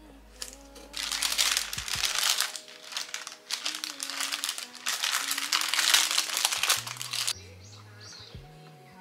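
Paper cake wrapper being folded and crinkled by hand, a dense crackling crinkle that starts about a second in and stops about seven seconds in, over soft background music.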